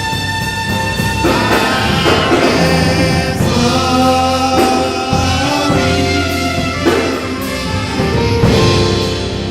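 Gospel music with held chords that change every second or two, with singing.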